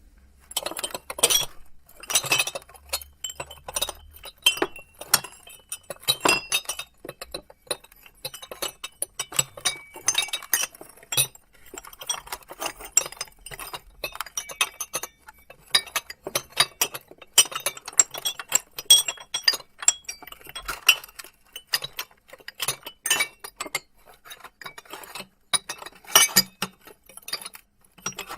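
Glass plates and bowls clinking and clattering against each other as they are handled, in many irregular short chinks with brief ringing.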